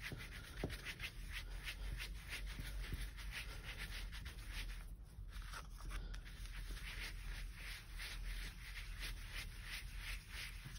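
Soft round blending brush rubbing over cardstock in repeated quick strokes, buffing loose mica powder off heat-set gold stencil paste. The sound is faint.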